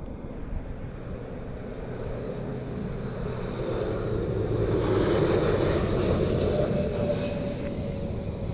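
Jet aircraft engine noise swelling as a plane passes on approach, with a faint whine rising out of it later on, and wind on the microphone.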